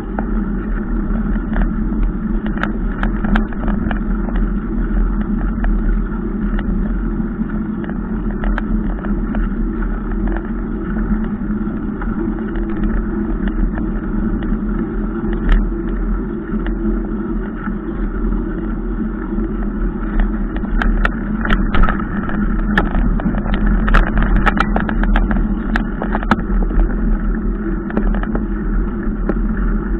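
Steady rolling and wind noise picked up by a camera mounted on a mountain bike riding a dirt road, with scattered sharp clicks and rattles from the bike and camera mount jolting over bumps. The clicks are thickest from about twenty seconds in.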